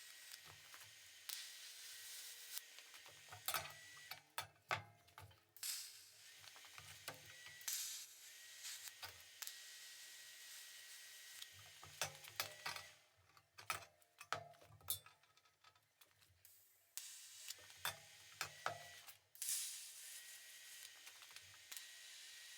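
Faint TIG welding on stainless steel: the arc hisses and buzzes in runs of a few seconds, with a thin steady whine, broken by short pauses and clicks.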